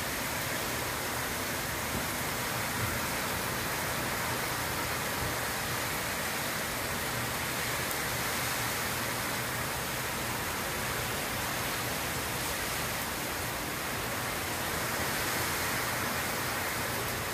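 Heavy tropical-storm rain pouring down steadily, a constant even hiss with no letup.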